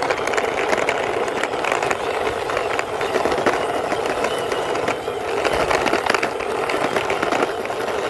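Plastic toy car pushed by hand along a rough concrete wall, its plastic wheels rolling with a steady gritty rattle of small clicks.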